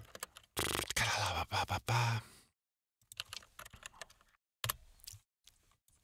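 Computer keyboard and mouse being worked, picked up by the studio microphone: a dense run of key clatter for about two seconds, followed by scattered clicks and a few short bursts of keystrokes.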